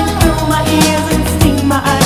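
Background music: an upbeat song with a steady beat and a melodic line, possibly with a voice singing.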